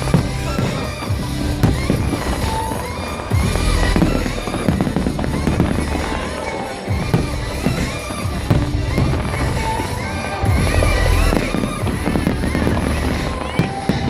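Fireworks bursting in a rapid series of deep booms and bangs, with music playing throughout.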